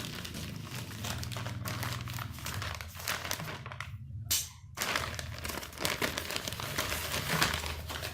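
Plastic packaging crinkling and crackling as it is handled and opened, with a brief pause about four seconds in.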